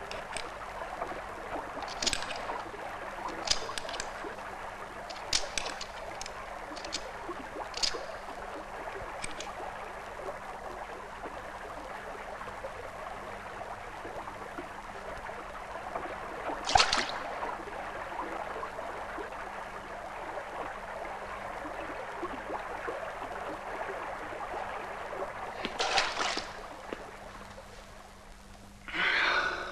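Steady rushing of flowing river water, with scattered sharp clicks in the first ten seconds and two louder sharp sounds about seventeen and twenty-six seconds in. A short breathy sound comes near the end.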